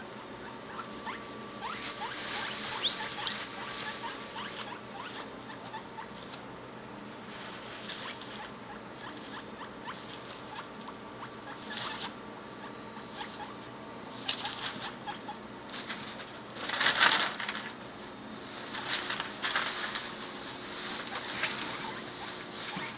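Guinea pigs wheeking with short rising squeals, over rustling and crackling in bursts from a plastic grocery bag being wrinkled and from their scurrying in wood-shavings bedding; the loudest burst comes about 17 seconds in. The calls are their excited, conditioned response to the bag sound, which they link with food.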